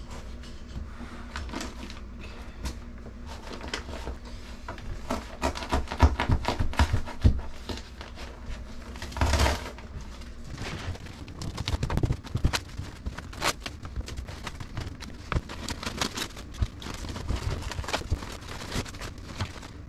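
Hands working inside an open wall cavity: fiberglass insulation and drywall debris rustling and crackling as they are pulled out, with scattered clicks and knocks against the pipes and fittings, and a louder tearing rustle about nine seconds in.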